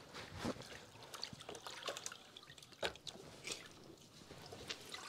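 Faint water dripping and trickling, with a few light clicks and knocks, from washing up by hand.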